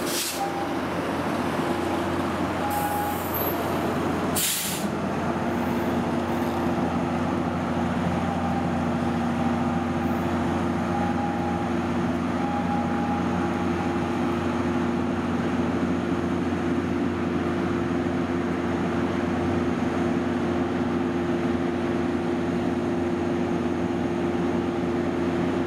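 Diesel locomotive of a Metro-North commuter train running with a steady engine hum. Short bursts of air hiss come from the brakes in the first five seconds.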